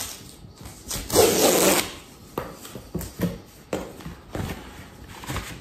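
Large sheets of paper rustling and crinkling as posters are unwrapped from their paper packaging, with one loud, longer rustle about a second in and several short, softer ones after.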